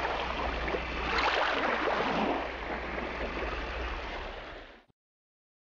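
A steady rushing noise over a low hum, swelling slightly about a second in and fading out near the end into silence.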